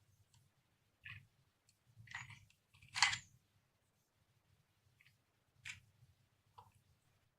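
A handful of faint, scattered clicks and taps from small toy pieces being handled, the loudest about three seconds in.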